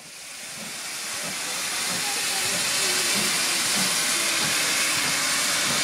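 Steady hiss of escaping steam from a steam locomotive, fading in over the first couple of seconds and then holding even.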